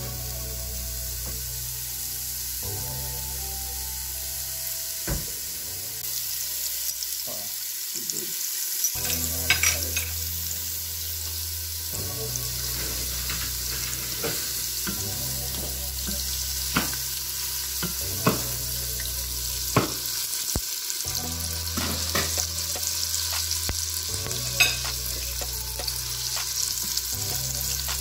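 Diced red onion sizzling steadily in hot olive oil in a Philips multicooker's nonstick inner pot on the sauté setting. A silicone spatula stirs it, with several sharp knocks against the pot.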